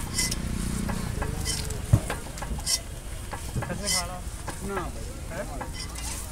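Egg roll sizzling on a hot street-food griddle while it is dressed with sauce and rolled up by hand. There is a single sharp knock about two seconds in.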